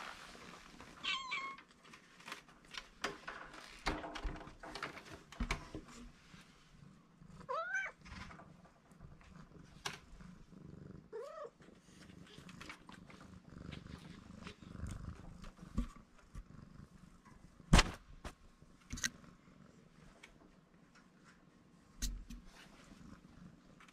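Black-and-white kitten purring steadily, with three short meows. There are scattered clicks and knocks, one of them sharp and loud partway through.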